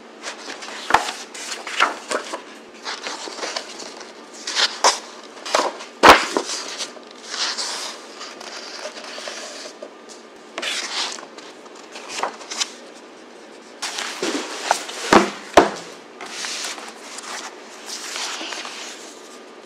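Pages of a large hardcover recipe book being turned and smoothed by hand: repeated paper swishes and crackles with a few sharp snaps of stiff pages, the loudest about six seconds in.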